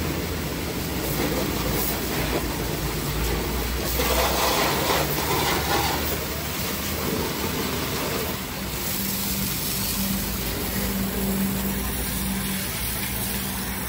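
Pressure washer spraying a high-pressure water jet against the underside of a car, a steady hiss of spray over the steady low hum of the washer's pump motor. The spray is loudest a few seconds in.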